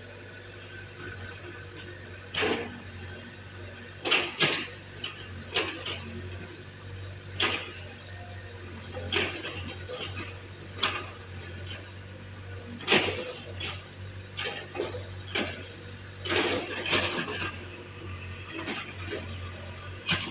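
Excavator engine running with a steady low hum, under irregular scrapes and knocks of digging in soil and stones, about a dozen of them spaced a second or two apart.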